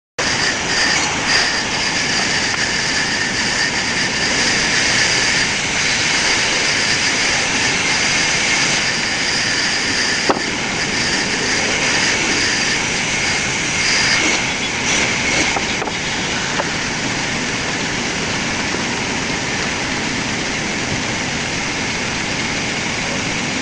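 Sawmill saw running and cutting through wood: a steady, loud grinding noise with a high-pitched whine, and a sharp click about ten seconds in.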